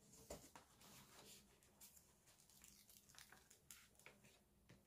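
Near silence, broken by a few faint ticks and crinkles of the clear plastic cover film being handled and lifted from the adhesive surface of a diamond painting canvas.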